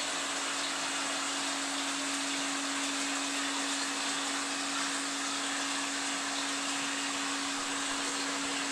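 Reef aquarium pumps and circulating water running: a steady hiss with a constant hum underneath.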